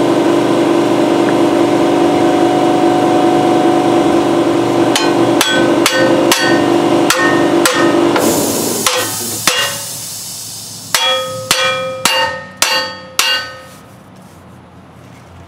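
Hammer tapping a steel Iron Rock Offroad axle truss down onto the axle housing to seat it. The sharp, ringing metal blows come about two a second from about five seconds in, with a last group of blows near the end. Under the first blows a motor runs with a steady hum, then winds down and stops about eight seconds in.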